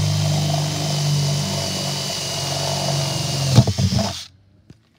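Cordless drill with a 1-inch spade bit boring through the plastic bottom of a planter pot, its motor running steadily under load. There is a sharp knock about three and a half seconds in, and the drill stops soon after.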